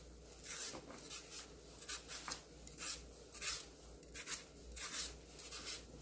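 Kitchen knife shaving thin slices off a Korean radish, a short scraping stroke about twice a second at an uneven pace.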